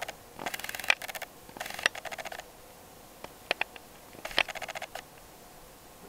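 Praktica HD camcorder's lens motor, heard through the camcorder's own built-in microphone: short bursts of fast ticking as the 10x optical zoom and focus drive the lens. There are three bursts, with a few single clicks between the second and third.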